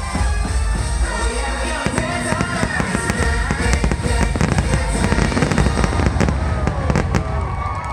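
Fireworks finale: many shells bursting and crackling in quick succession, thickest in the second half, over the show's soundtrack music.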